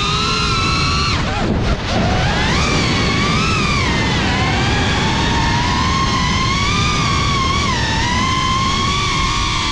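Drone's electric motors and propellers whining close to the camera, several stacked tones sliding up and down with the throttle. A little over a second in, the pitch drops sharply and climbs back within about a second.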